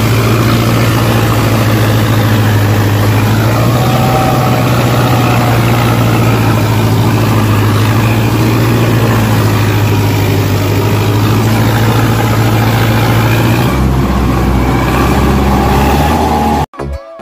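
A motor running steadily under load, a loud, constant low drone that drops to a deeper hum about three-quarters of the way through and then cuts off abruptly.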